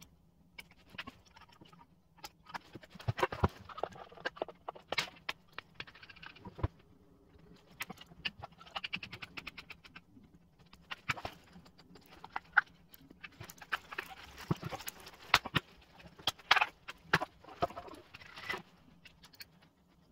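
Sped-up clatter of RC truck parts and hex drivers being handled on a wooden table: scattered plastic clicks and knocks with stretches of quick, dense ticking.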